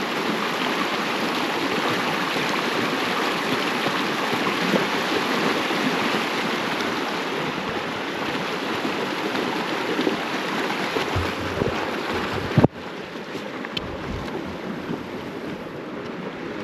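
Rushing stream water, a steady hiss, with some wind buffeting the microphone. A sharp click about thirteen seconds in, after which the water sounds a little quieter.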